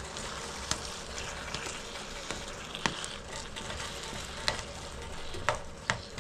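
Partly frozen sausage sizzling in a pot of frying tomato and oil, with a steady hiss and several sharp clicks along the way.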